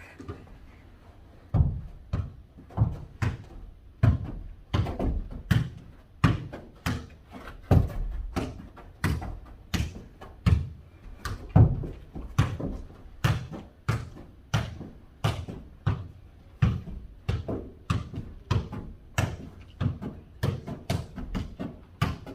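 A ball being kicked back and forth and bouncing on a hard floor in a foot-volleyball rally: a long run of sharp thuds, about two a second, starting a second or two in.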